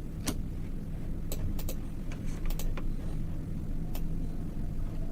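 Computer mouse clicking about ten times at irregular intervals while shapes are resized, over a steady low hum.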